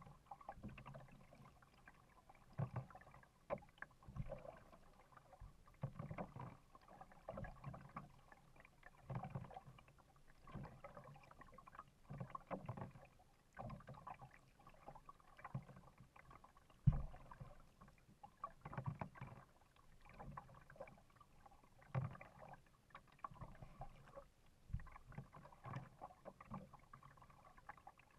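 Kayak paddle strokes in lake water, a soft dip and swish about every second and a half. One sharper knock comes about two-thirds of the way through.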